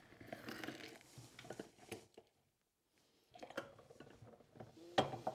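Half a lemon squeezed in a lever-arm citrus press: faint wet squishing with juice trickling and dripping into a glass bowl. The sound breaks off for about a second in the middle, and a couple of soft clicks from the press come near the end.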